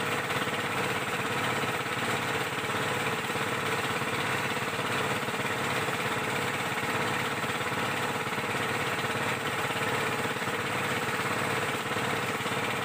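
Small boat's engine running steadily while under way, with a constant drone.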